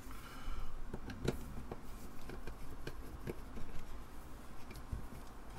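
Scattered small clicks and light taps of a screwdriver and fingers working on an opened Apple Disk II floppy drive, with a short scrape at the start.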